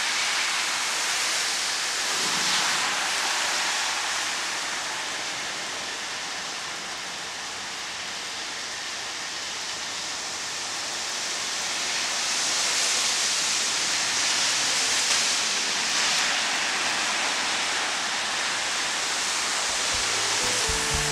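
Steady heavy rain with the hiss of car tyres ploughing through flooded street water, swelling louder a couple of times as cars pass. Guitar music comes in near the end.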